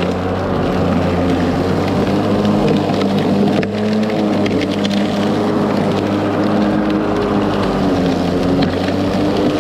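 Ryobi 40V brushless electric lawn mower running steadily under load, a steady multi-tone hum from its spinning blade over a rough hiss, with a brief break a little before four seconds in.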